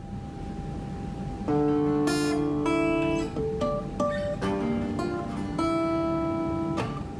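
Acoustic guitar playing the instrumental intro of a song: chords ring out from about a second and a half in, with plucked and strummed notes following one after another, after a faint steady hum at the start.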